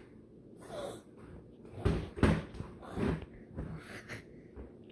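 A toddler making silly breathy noises with his mouth and nose, in about five short bursts, the loudest about two seconds in.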